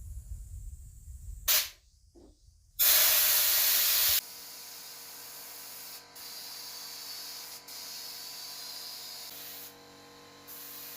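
Air spray gun hissing as it sprays finish: a short puff about one and a half seconds in, a loud burst of spray lasting over a second about three seconds in, then a steadier, quieter hiss broken by brief pauses. A low rumble comes before the first puff.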